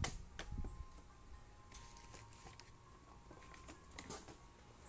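Paper shopping bag and paper wrapping rustling and crinkling in short, irregular crackles as a garment is pulled out, loudest right at the start.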